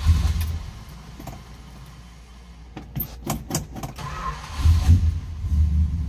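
Keys jangle at the ignition and the 1966 Plymouth Belvedere's 383 Commando V8 is started. From about four and a half seconds in it runs with a low, uneven rumble.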